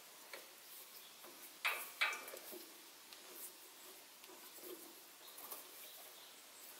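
Faint metallic clicks and ticks from a die holder on a tailstock arbor and a lathe chuck turned by hand, cutting a 5BA thread on a 3/16 in stainless steel rod. Two sharper clicks come close together a little under two seconds in.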